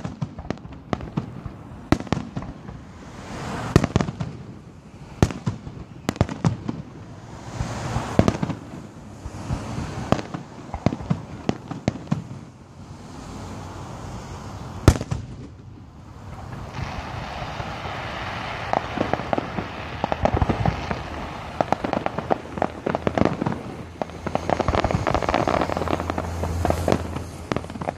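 Fireworks going off: a run of sharp, separate bangs, then from about halfway a dense, continuous crackling of rapid pops.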